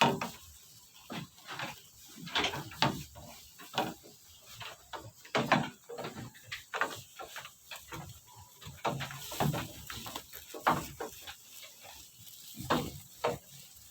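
Goats giving many short bleats, one after another, scattered irregularly.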